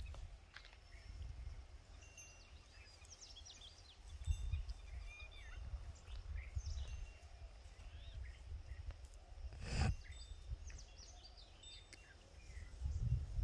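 Outdoor field ambience: scattered small birds chirping and calling over a low, gusting wind rumble on the microphone, with a single sharp click a little under ten seconds in.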